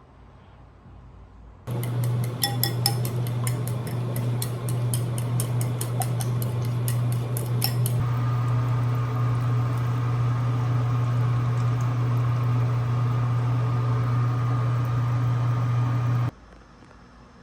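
An electric kitchen appliance running with a loud, steady low hum. It switches on about two seconds in and cuts off abruptly near the end. A quick ticking rattle sounds during its first several seconds, and a steady higher whine joins the hum about halfway through.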